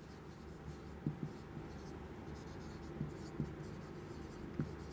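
Marker pen writing on a whiteboard: faint scratches and taps of the tip as words are written, several short strokes over a low steady room hum.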